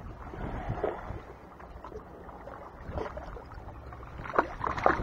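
Wind on the microphone and small sea waves washing against shoreline rocks, with a few short knocks and clicks, the loudest close together near the end.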